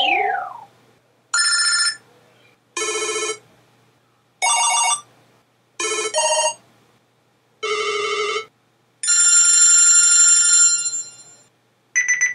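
BlackBerry Bold 9700 alert tones played one after another: a short falling sweep, then a string of brief electronic chimes roughly every second and a half, one of them doubled. About nine seconds in comes a longer ringing tone of about two seconds, and a quick double chime follows near the end.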